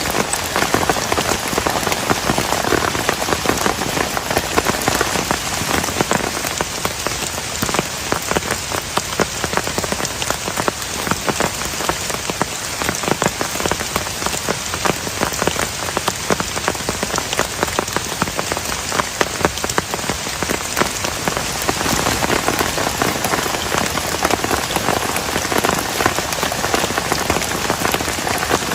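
Heavy rain drumming steadily on a plastic tarp, a dense patter of individual drops over a constant hiss.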